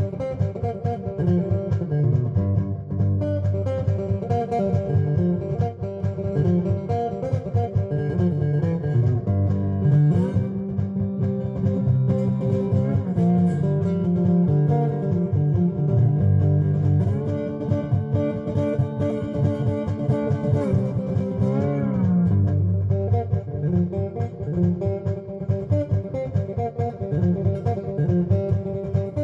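Instrumental background music led by guitars over a steady bass guitar line, with a bending guitar note about two-thirds of the way through.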